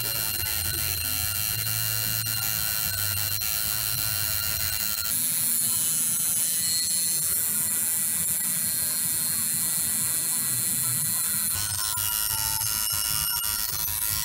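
Electric tattoo machine buzzing steadily as the needle works into skin. Its tone changes about five seconds in and changes back near the end.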